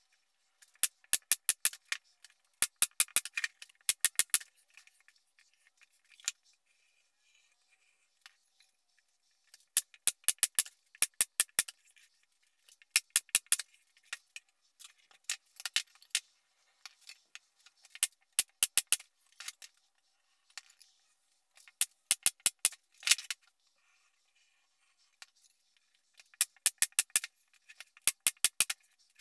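Pneumatic brad nailer firing brads into plywood panels in quick runs of sharp clicks, several shots to a run, with pauses of a second or more between runs.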